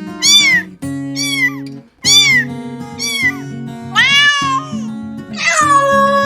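Domestic cat meowing: five short meows about a second apart, then a long drawn-out meow near the end, over background music.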